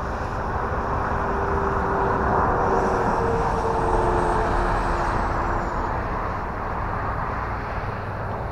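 Horizon Hobby Viper 70 mm electric ducted-fan RC jet on a 6S battery flying past: a rushing whine that swells over the first few seconds, drops in pitch about five seconds in as it goes by, then eases off.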